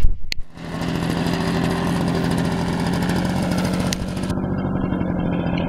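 Engine of a large radio-controlled model airplane catching about half a second in, then idling steadily.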